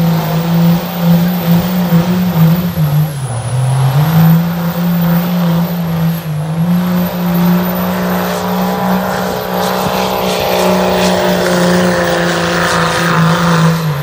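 Diesel pickup truck engine running at full throttle under heavy load as it drags a weight-transfer pulling sled, its pitch sagging briefly a few seconds in before climbing back and holding high.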